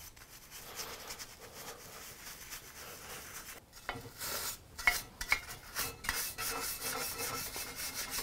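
Stiff bench brush scrubbed back and forth over the cast-iron body of an old Stanley hand plane, brushing off grime. The strokes turn quick and regular in the second half, and there are a few sharper clicks about four and five seconds in.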